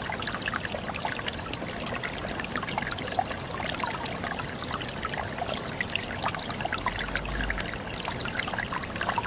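Water trickling and burbling steadily, a continuous rush dotted with many small, quick bubbling plinks.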